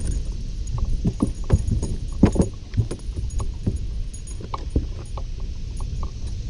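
A hooked bass splashing and thrashing at the water's surface as it is reeled to the boat and swung aboard. A cluster of splashes and knocks comes about one to two and a half seconds in, over a steady low rumble.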